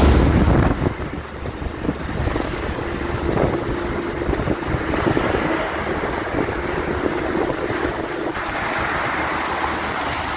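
Wind buffeting the microphone and the rushing hiss of a moving truck's tyres throwing spray off a rain-soaked road, heard from outside the truck's cab.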